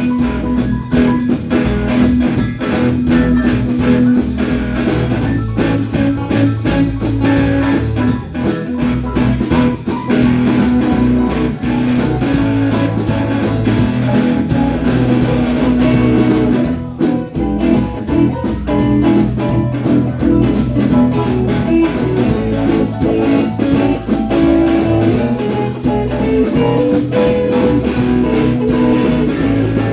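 Live blues-rock band playing an instrumental break: electric guitar leading over bass guitar and drum kit.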